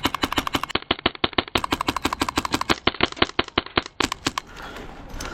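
HPA airsoft rifle with a PolarStar Kythera engine firing full-auto, a fast, even string of sharp shots at about ten a second. It stops about four seconds in, leaving fainter scattered shots.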